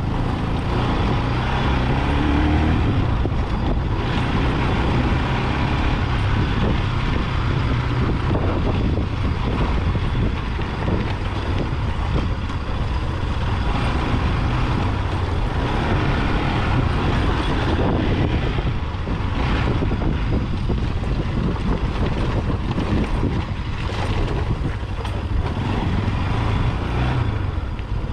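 Motorcycle being ridden: engine running steadily under wind and road noise.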